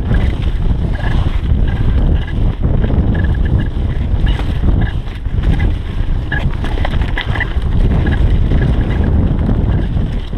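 Wind buffeting the camera microphone as a mountain bike runs fast down a leaf-covered dirt trail, a steady low rumble mixed with tyre noise and scattered short clicks and rattles from the bike.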